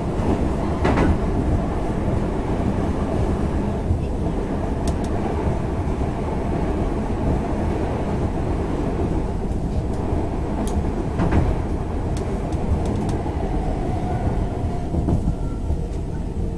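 Stockholm Metro C20 train running along the line, heard from inside the car. A steady rumble of wheels and running gear, with a few short clicks and squeaks.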